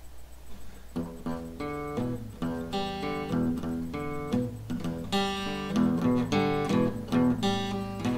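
Acoustic guitar played by hand, starting about a second in with picked notes and chords, then strummed louder from about five seconds in.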